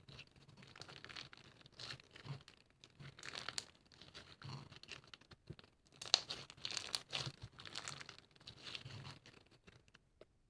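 Irregular crinkling and rustling in uneven bursts, as of something being crumpled or torn by hand; it stops just before the end.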